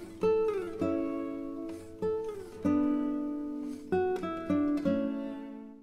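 Intro music on an acoustic guitar: plucked chords and notes, each ringing and dying away, with a couple of notes sliding down. It fades out near the end.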